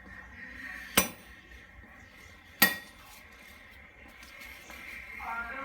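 Two sharp metal-on-metal strikes with a brief ringing, about a second and a half apart: a hammer striking steel while links are taken out of a Royal Enfield's drive chain to shorten it.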